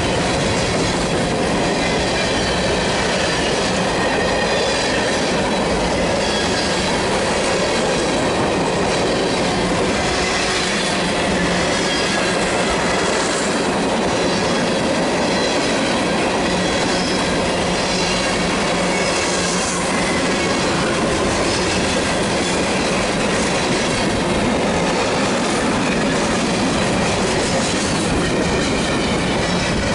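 Freight cars of a BNSF mixed freight train rolling past close by: a steady, loud rolling noise of steel wheels on the rails, with faint high-pitched wheel squeal over it.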